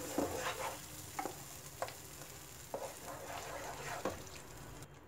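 Wooden spatula stirring a thick ground masala paste in hot oil in a coated kadai, with a light sizzle and a few scattered taps and scrapes of the spatula on the pan. The paste is being fried until the oil separates. The sizzle cuts off near the end.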